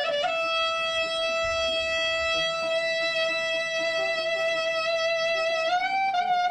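Clarinet holding one long, steady high note in a Turkish folk clarinet taksim (improvised solo), then stepping up slightly to a higher note near the end.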